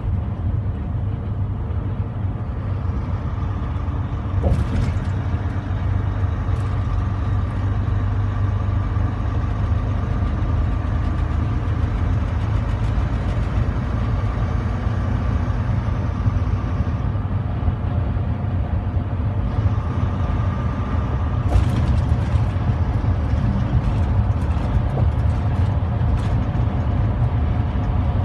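Steady low rumble of a truck's engine and tyres at highway speed, heard from inside the cab, with a few light clicks and rattles, more of them near the end.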